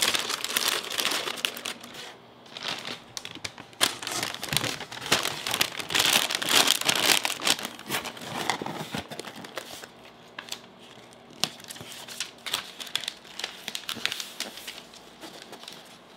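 Paper packaging being handled: a paper bag crinkling as it is folded shut, then a corrugated cardboard box being folded together, with dense rustling in the first half that thins to scattered rustles and light taps.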